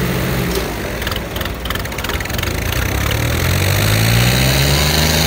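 Two diesel tractor engines, an Arjun 605 and a Ford 3630, running hard as they pull against each other in a tug of war, with a rapid rattle between about one and two seconds in. About three seconds in the engines rev up, rising in pitch and getting louder under heavy load.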